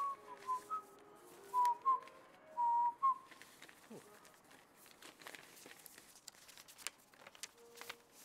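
A short whistled tune of quick notes for about the first three seconds, then paper crinkling and rustling as envelopes are handled and opened.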